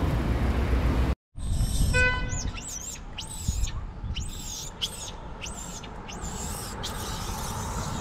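A baby macaque making a series of about eight high-pitched, arching squeals, coming roughly one to two a second, in an angry display. A low rumbling noise is heard before a sudden cut about a second in.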